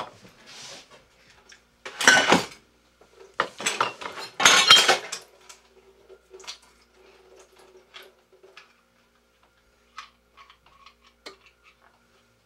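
Metal can of ham being worked with a hand-held can opener: three loud rasping metal scrapes in the first five seconds, then only faint clicks and taps.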